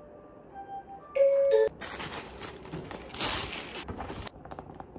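Soft background music, then a short loud electronic chime about a second in. After it, plastic wrap and plastic packaging crinkle and rustle for a couple of seconds as delivery food containers are unwrapped, stopping suddenly, with a few light clicks near the end.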